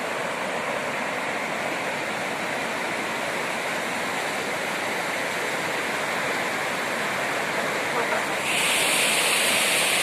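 River rapids: fast water rushing over rocks in a steady, even rush, which turns louder and hissier about eight and a half seconds in.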